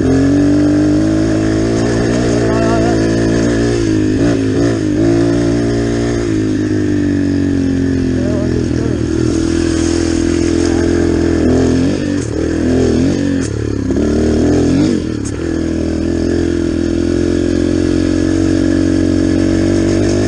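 Yamaha dirt bike engine running under way across rough ground, mostly at a steady pitch, with the revs rising and falling several times in the middle.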